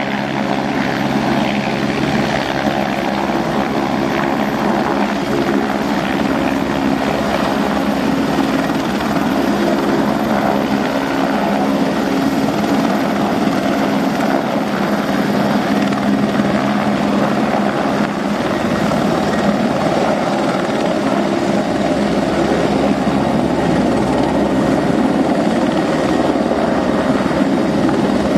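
Aérospatiale AS355F2 TwinStar helicopter in a low hover, its twin Allison 250 turboshaft engines and main rotor running steadily at flight power. The rotor and turbine noise is loud and even.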